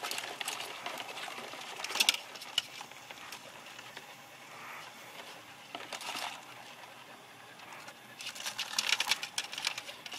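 Live blue crabs' shells and claws clicking and scrabbling against each other and the wooden bushel basket, in bursts of rapid clicks, with the longest and loudest run near the end.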